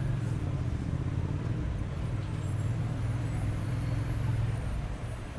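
City street traffic with a heavy vehicle's engine rumbling low and steady close by, dropping away about four and a half seconds in.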